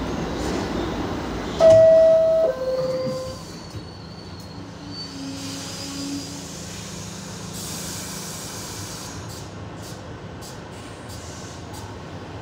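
R62A subway car's two-note door chime, a high note falling to a lower one about two seconds in, the signal that the doors are about to close. Before and after it runs the steady noise of the train, quieter after the chime.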